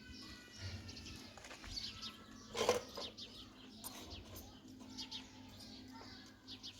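Birds chirping faintly, with one short knock a little under three seconds in.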